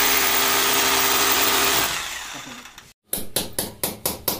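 An electric drill runs steadily for about two seconds, then winds down. After a brief break comes a rapid run of sharp taps, about five a second.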